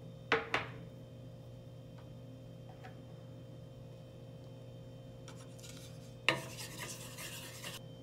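Kitchenware handling over a stainless steel pan, under a low steady hum: two sharp clicks just after the start, then about six seconds in a knock followed by a second or so of rubbing and scraping as a glass bowl of onions is brought to the pan.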